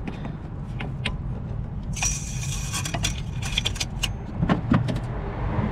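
Metal tools and parts clinking and clattering during reassembly, with a jangling rattle about two seconds in, over a steady low rumble.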